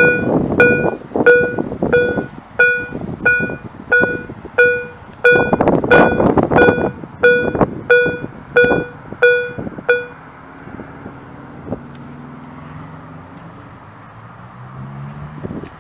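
A DEPK-08 level-crossing warning bell striking a clear ringing tone about one and a half times a second. It stops about ten seconds in, leaving a quieter steady low hum.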